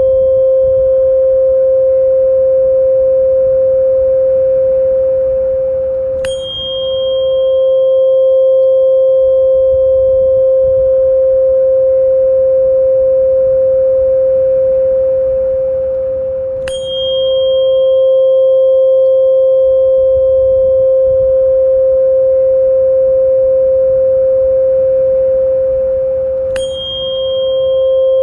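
Sound-therapy tone track: a steady pure tone a little above 500 Hz with faint higher overtones, and a bright bell-like strike about every ten seconds, three times, each ringing on at a high pitch. A faint low rumble lies underneath.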